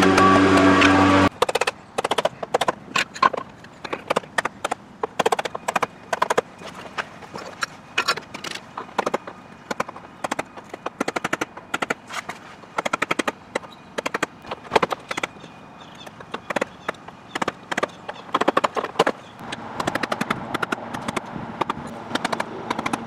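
Mallet striking a wooden stick to tap a vinyl Trim-A-Slab expansion joint strip down into the gap between a house wall and brick pavers: quick irregular knocks, several a second, with short pauses. A loud low steady tone sounds for the first second and cuts off suddenly.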